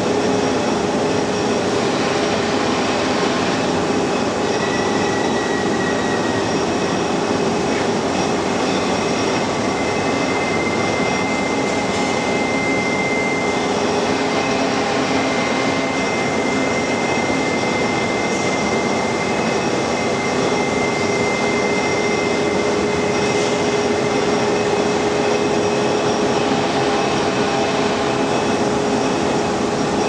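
Steady machinery noise: a constant hum with a thin high whine that comes and goes, holding the middle of the stretch.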